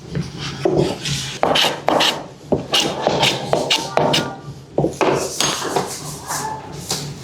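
Irregular rasping and scraping strokes on the wood of a cricket bat, short strokes of uneven length, with music playing underneath.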